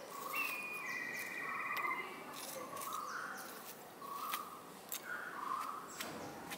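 Birds singing: short warbled phrases and a trill repeat throughout, with a few sharp light clicks scattered among them.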